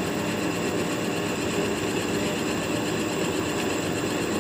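Belt-driven vertical column drill machine running steadily, its twist drill cutting into a mild steel workpiece without coolant and throwing off continuous chips.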